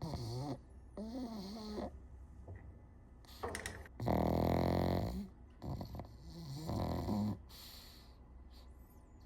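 Pug snoring in its sleep: about five snores on successive breaths, some with a wavering pitch. The loudest is a drawn-out snore of about a second, starting about four seconds in.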